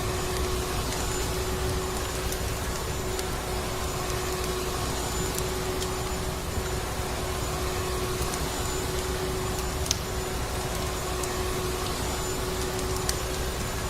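Vacuum cleaner running steadily with a constant motor hum, overlaid with scattered sharp crackles of a wood fire.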